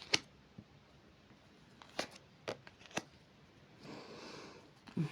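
Tarot cards being handled: a few sharp card slaps, near the start and about two, two and a half and three seconds in, then a short sliding, rustling sound about four seconds in.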